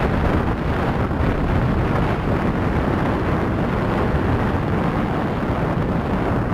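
Steady wind rush on a helmet-mounted camera's microphone and the rumble of a mountain bike moving at speed over a dirt trail.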